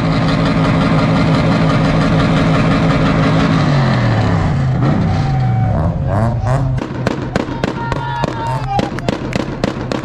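Car engine held at a steady high rev, its revs falling away about four seconds in. From about seven seconds in comes a rapid run of sharp exhaust bangs, about four a second, the popping of a two-step launch rev limiter.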